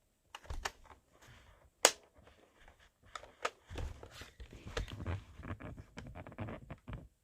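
Hard plastic clicks and clacks from handling a Nerf Rival Roundhouse blaster, with one sharp loud snap just before 2 seconds in. From a little before 4 seconds the clicks come thick and fast over a low rumble of handling.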